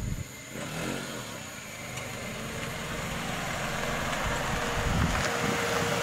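A Honda Life JB5 kei car driving slowly at close range, its engine and tyres growing steadily louder as it comes nearer.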